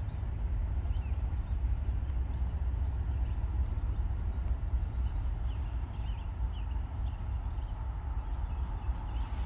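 Birds chirping over a steady low rumble, with a faint steady tone that grows slightly stronger near the end.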